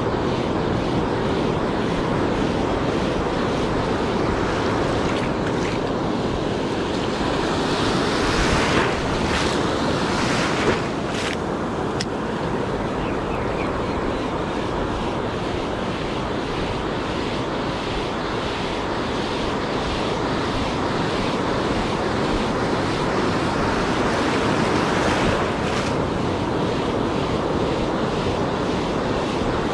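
Ocean surf washing onto a sandy beach, with wind buffeting the microphone. The waves swell louder about eight seconds in and again about twenty-five seconds in.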